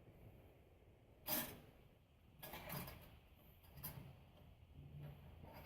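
Faint scattered clicks and clanks of bandsaw parts being handled while a blade is fitted and adjusted: one sharp knock about a second in, then lighter rattles.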